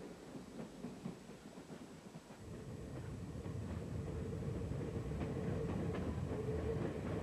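Freight train of loaded rail wagons rolling past: a low rumble that grows louder about two and a half seconds in and then holds steady, with a few faint clicks from the wheels.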